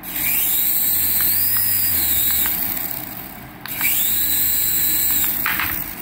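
Small electric motors of a hand-held toy RC helicopter spinning its coaxial rotors, a high whine with blade hiss that rises as the rotors spin up and drops as they slow. It runs twice, with a brief stop about three and a half seconds in.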